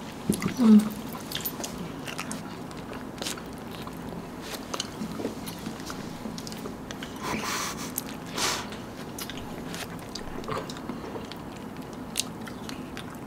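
Close mouth sounds of people eating chocolate-coated ice cream bars: scattered bites and chewing with soft clicks and smacks, and a couple of brief louder swells about halfway through.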